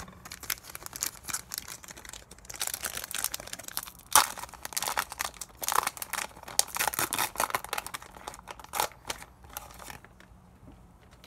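Foil wrapper of a Pokémon card booster pack being torn open and crinkled by hand, in irregular crackling rustles with one sharper crackle about four seconds in.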